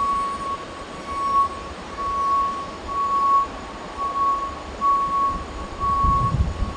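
A single-pitched beep repeating about once a second, each beep about half a second long, over low rumbling wind noise that swells briefly near the end.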